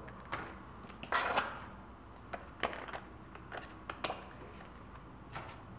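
Pages of a thin printed paper booklet being opened and leafed through: soft paper rustling, a longer rustle about a second in, then a few short sharp page flicks.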